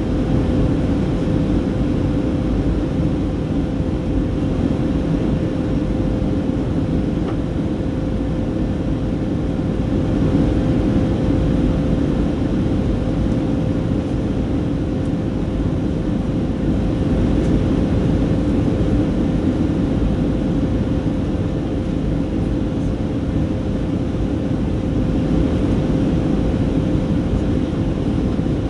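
Steady jet engine drone and airflow inside the cabin of a Boeing 737-300 with CFM56-3 turbofans, heard from a window seat by the wing, with a steady hum held at one pitch throughout.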